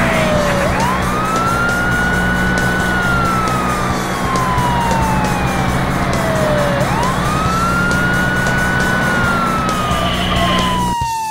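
Police car siren wailing over a steady low rumble. The siren climbs quickly, holds, then falls slowly, in a cycle about every six seconds. It fades out near the end.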